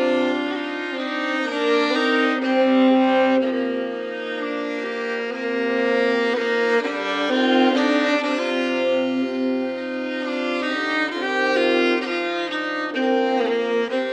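Several overdubbed fiddle parts playing a calm, darkening Swedish folk tune together, long held lower notes under a moving melody.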